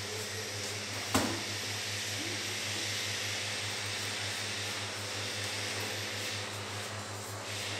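Steady hiss and low hum of room air conditioning, with a single sharp knock about a second in.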